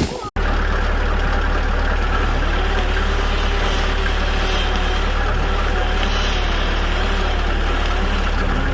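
A large engine running steadily at a constant speed, after a brief gap near the start.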